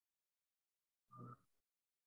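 Near silence, broken about a second in by one brief, faint sound lasting under half a second.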